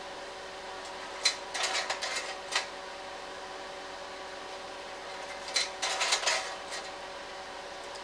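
Slide projector's fan humming steadily, broken twice by the clatter of the slide-change mechanism, about a second in and again about five and a half seconds in, as the next slides drop into place.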